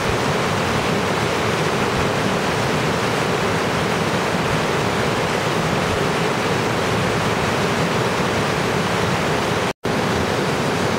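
Steady rush of a fast-flowing rocky river, water running over and around boulders. The sound drops out for a split second near the end.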